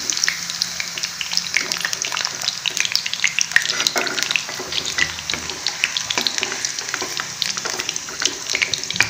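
Hot mustard oil sizzling and crackling steadily in a kadhai as a metal ladle scoops fried potato pieces out of it.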